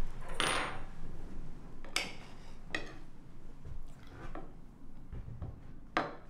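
Tableware clinking at a meal: a short noisy rustle at the start, then four sharp clinks of cutlery and dishes spread irregularly over the next few seconds.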